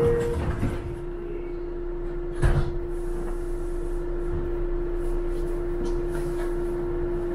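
New York City subway car standing with a steady electrical hum and low rumble, the low note of a two-tone chime ending right at the start. A single knock comes about two and a half seconds in.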